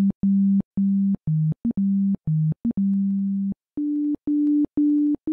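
Ultrabasic software synthesizer playing plain sine-wave notes in a simple low melody: mostly one pitch with a few dips lower and short grace notes, then a run of higher notes about four seconds in. Each note starts and stops with a small click, and the panner shifts the sound away from centre.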